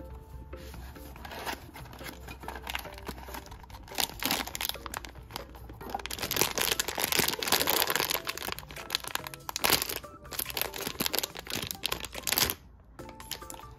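Crinkling and tearing of a shiny plastic blind-box bag being handled and torn open by hand, a dense crackle that grows louder in the middle and stops abruptly near the end.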